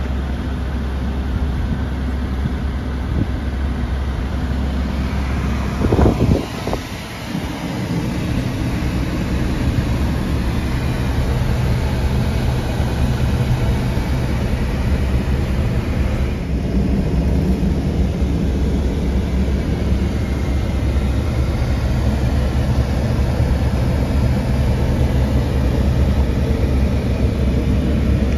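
Link-Belt 145X4 excavator's diesel engine running at a steady idle, a constant low hum. About six seconds in there is a brief cluster of loud knocks.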